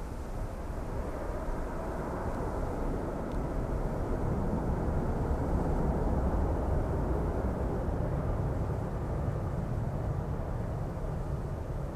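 Engine noise from a Boeing 777-300ER's two GE90-115B turbofans as the airliner climbs away just after takeoff: a deep, steady rumble that swells a few seconds in and then eases slightly as the jet recedes.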